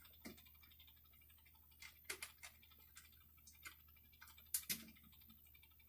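Faint, irregular clicks and ticks of hands working the wires and a tool at a motion-sensor switch and its plastic electrical box, as the load wire is fitted to the switch.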